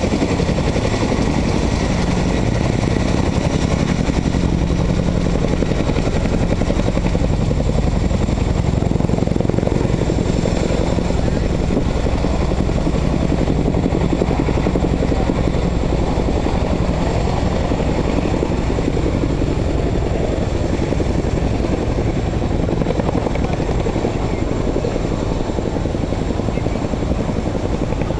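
Boeing CH-47 Chinook tandem-rotor helicopter running loud and steady, its rotor beat continuous. It eases slightly near the end.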